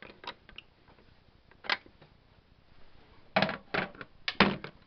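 Socket ratchet clicking while a spark plug is worked loose: a few single clicks, then a quicker run of five or six clicks near the end.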